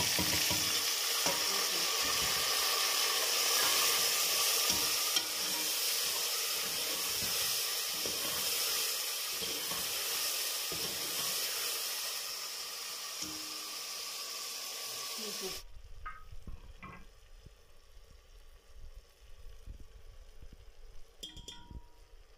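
Chopped tomatoes sizzling in hot oil and onions in an aluminium pot, with a ladle knocking and scraping as they are stirred. The sizzle cuts off suddenly about two-thirds of the way through, leaving a faint low hum and a few light clicks.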